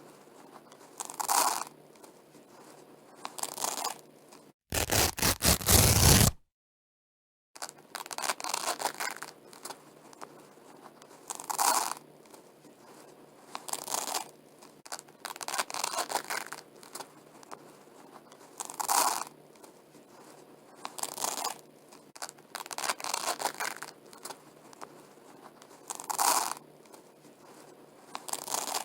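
Velcro strips being pulled apart again and again, a crackling rip roughly every two seconds. The loudest and longest rip comes about five seconds in and is followed by a second of dead silence.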